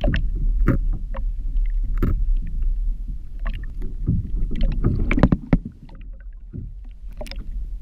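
Water splashing and scattered knocks and clicks at the side of a fishing kayak as a large jack crevalle is released, over a steady low rumble.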